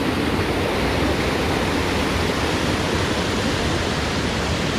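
Waterfall rushing close by, a loud steady roar of falling water.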